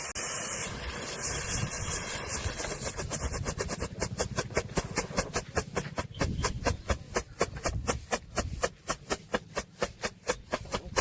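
A fading hiss, like the last of a burning firework's fizz. From about three seconds in, a steady ticking beat of sharp wood-block-like clicks comes in, about four a second, growing more distinct.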